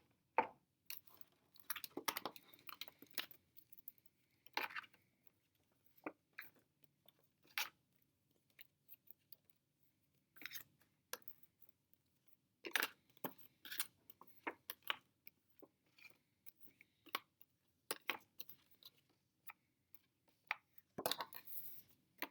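Scattered light clicks, taps and rustles of letter cards being handled and placed on a blending board, with short quiet gaps between them.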